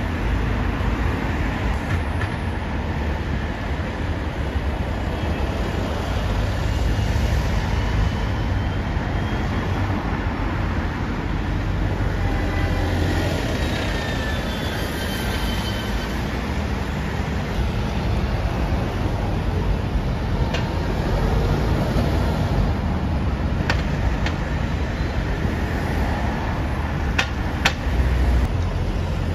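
Road traffic at a busy junction, with red double-decker buses driving past close by: a steady rumble of engines and tyres, with a few sharp clicks near the end.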